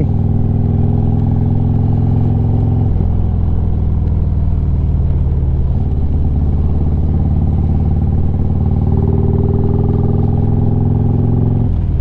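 Harley-Davidson Street Glide's V-twin engine running steadily at cruising speed, with road and wind noise. The engine note shifts slightly about three seconds in.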